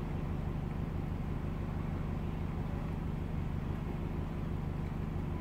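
A steady low hum that holds level and pitch throughout.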